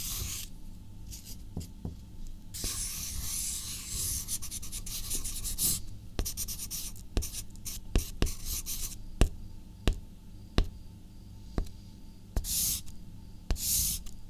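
Writing on paper: scratchy strokes of the tip across the page, some long and some short. These are broken from about six seconds in by sharp ticks of the tip striking the paper, which are the loudest sounds.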